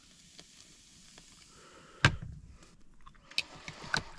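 A single knock about two seconds in, then quick light clicks of a utensil against a bowl near the end, about four a second, as beer batter is stirred.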